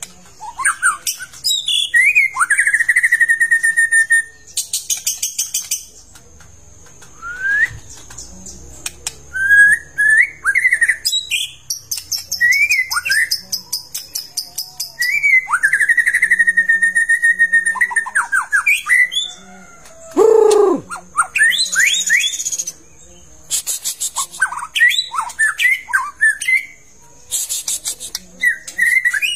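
Long-tailed white-rumped shama (murai batu) in full, continuous song: varied phrases of clear whistles gliding and held around 2 kHz, broken by bursts of fast, harsh chattering trills. About 20 s in, it gives a lower note that slides downward. A faint steady high-pitched tone runs underneath.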